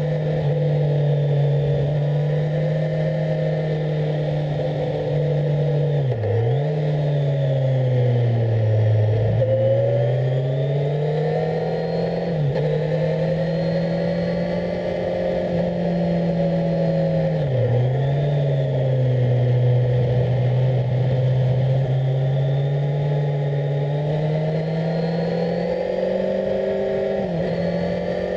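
Kawasaki Z1000SX's inline-four engine running under way, heard on board. Its revs dip sharply and climb back about five times, with slower rises and falls between.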